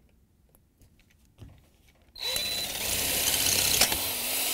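Cordless drill running for about two and a half seconds, starting abruptly about two seconds in and stopping suddenly, as it bores out a hole in a dishwasher's side mounting bracket to enlarge it. A few faint clicks come before it.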